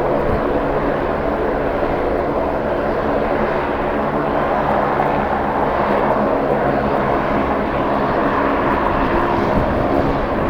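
Aircraft engines running steadily: a dense, level hum of several tones over a rushing noise, with no rise or fall in pitch.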